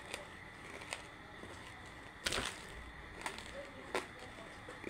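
Banslochan (tabasheer, hard chalky bamboo silica) being chewed close to the microphone: a handful of sharp crunches, the loudest a short cluster about two and a half seconds in.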